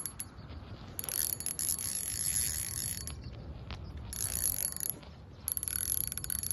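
A fishing reel ratcheting in three bursts of fast clicking while a hooked largemouth bass is played on a bent rod.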